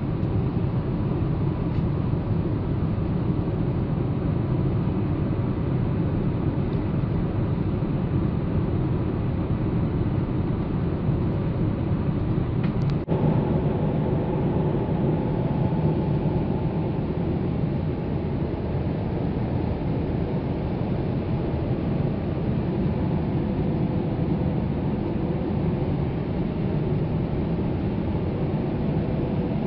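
Steady cabin drone of a Boeing 787 airliner in cruise flight, low and even throughout, with a single brief click about 13 seconds in.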